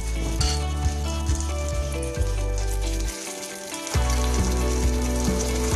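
Boiled potato pieces frying in a spoonful of hot mustard oil in a stainless steel pan, a soft sizzle, under background music whose low part drops out for a moment a little past the middle.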